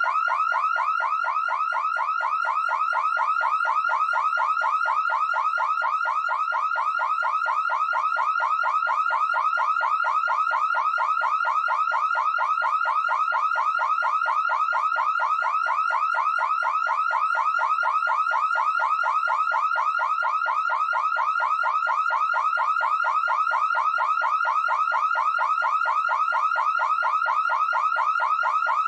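Electronic alarm tone: a steady warble of quick rising chirps, about four to five a second, unchanging throughout.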